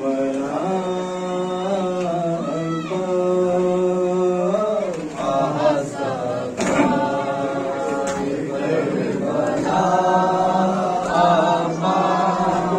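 Men's voices chanting a noha, a Shia Muharram lament, led at a microphone, with long held notes.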